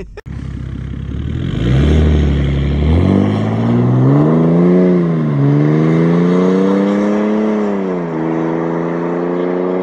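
BMW 330d's six-cylinder turbodiesel pulling under hard acceleration. The revs climb, drop back at an automatic upshift about five seconds in and again about eight seconds in, then climb again.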